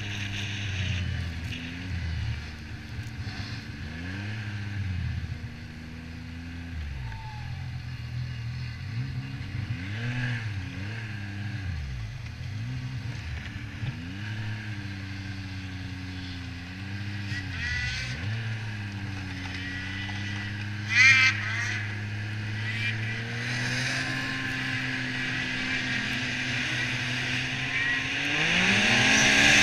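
Yamaha Viper XTX snowmobile engine running at trail speed, its pitch rising and falling repeatedly as the throttle is worked, then settling and climbing louder near the end as it accelerates. A hiss of wind and snow runs under it, and a brief sharp noise comes about two-thirds of the way through.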